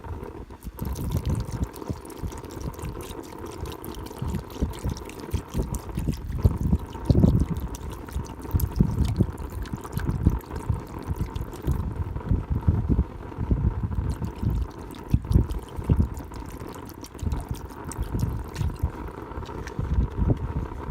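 Strong gusting wind buffeting the microphone, in uneven rumbling swells throughout.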